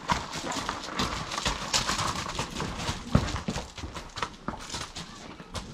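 Horses' hooves clopping and scuffing irregularly as the horses move about, with one sharper knock about three seconds in.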